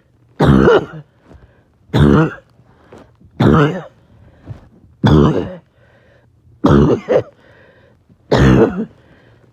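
A person in a coughing fit: six harsh coughs, one about every second and a half, each short and loud, with quiet between them.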